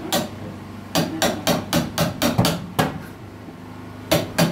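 Hammer blows on a wooden plank wall: a single blow, then a quick run of about eight strikes at roughly four a second, a pause, and two more blows near the end.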